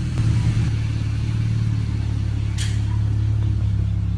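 Chrysler 300's engine running steadily at low speed as the car rolls back after brake work, with a short hiss about two and a half seconds in.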